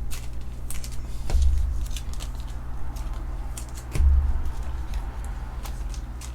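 Trading cards and a foil card pack being handled: scattered light crinkles and clicks, with two dull thumps, one about a second in and one about four seconds in, over a low steady hum.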